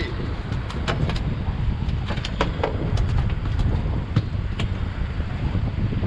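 Strong wind buffeting the microphone on a small fishing boat, a steady low rumble, with scattered short clicks and knocks of handling on the deck.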